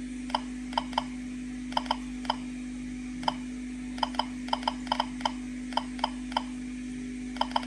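Geiger-counter dosimeter clicking at uneven intervals, about two to three clicks a second, as it counts gamma from a smoke detector's americium-241 source held a few centimetres away. A steady low hum runs beneath the clicks.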